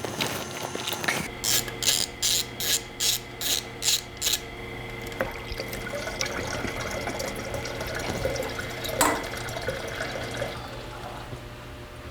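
A ratchet wrench clicking through about nine quick back-and-forth strokes in the first few seconds, loosening the drain bolt on a motorcycle engine's water pump cover. Then coolant runs out of the engine in a steady stream, with a single knock about nine seconds in.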